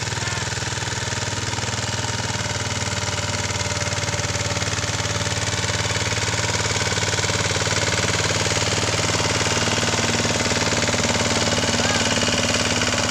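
Mahindra Yuvraj 215 tractor's single-cylinder diesel engine running steadily with a fast, even thudding beat while pulling a disc harrow under load; it grows somewhat louder as the tractor draws near.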